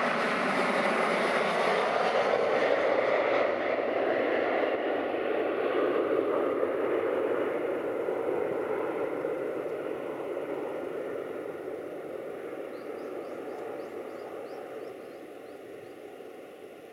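Boeing 737-800's twin CFM56-7B turbofan engines at takeoff thrust as the airliner lifts off and climbs away. The loud, steady jet noise holds for the first several seconds, then fades steadily as the aircraft recedes.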